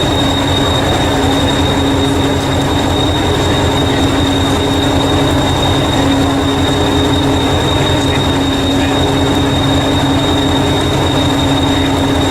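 A train running steadily, with a continuous low hum and a steady high-pitched whine, cutting off suddenly at the end.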